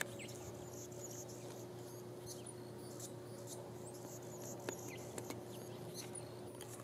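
Faint outdoor ambience: scattered short, high chirps over a steady low hum, with a few sharp ticks about five seconds in.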